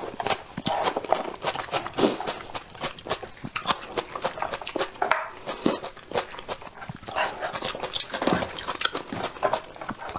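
Close-miked wet mouth sounds of eating braised sheep's head by hand: lip-smacking, sucking and slurping meat off the skull, with many quick clicks.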